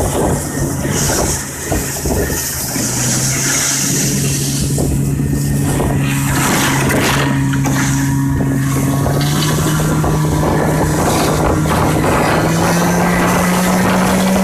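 A motor vehicle's engine running steadily under way, its pitch climbing slowly in the last few seconds, with wind noise and rattling over it.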